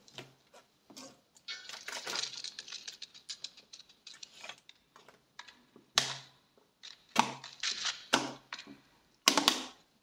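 An irregular series of sharp clicks and knocks, with a louder cluster near the end.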